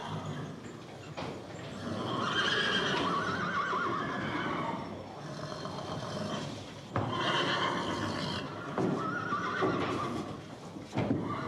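Horse whinnying: several long calls that waver in pitch, the first starting about two seconds in and others following about seven and nine seconds in.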